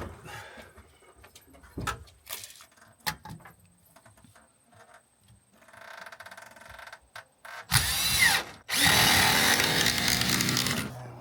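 Power drill running in two bursts, a short one then a longer one of about two seconds, after a few faint knocks of work on wood.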